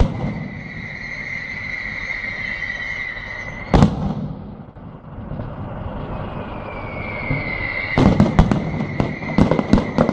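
Aerial fireworks display: a shell bursts with a sharp bang at the start and another about four seconds in, then from about eight seconds a rapid run of crackling bangs.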